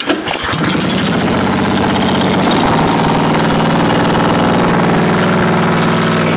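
Riding lawn mower engine cold-started: it turns over briefly and catches within a second, then runs steadily.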